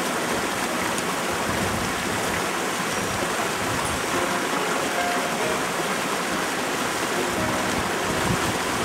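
Small mountain stream running steadily beneath a log footbridge, a constant rush of water.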